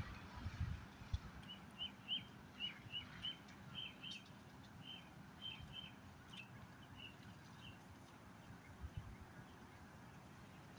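A bird giving a run of short, high chirps, about two a second, which stops a little past the middle. Faint low rumbling and a few soft thumps lie underneath.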